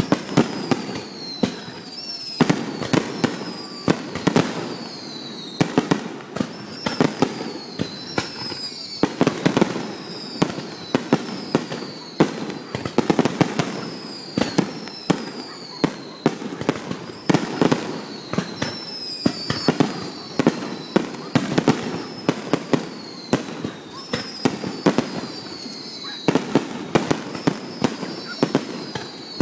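Fireworks finale: a dense, continuous barrage of shell bursts, several bangs a second, with high whistles falling in pitch every second or two.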